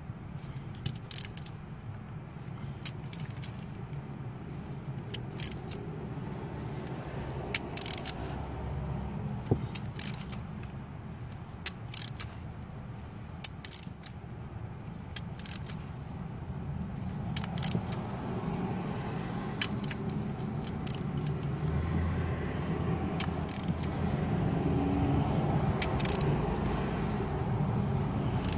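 Scattered sharp metallic clicks and clinks of a wrench working a glow plug loose in a Sprinter diesel engine, over a steady low rumble that grows a little louder in the second half.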